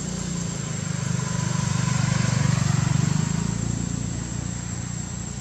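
A motor vehicle passing on the road, its engine hum swelling to a peak about two and a half seconds in and then fading.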